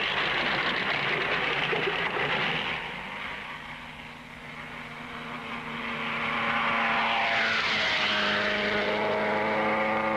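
1950s Grand Prix racing car engines running at speed. The first car is loud, then fades about four seconds in. A second engine note rises and holds steady, with a falling pitch near eight seconds as it goes by.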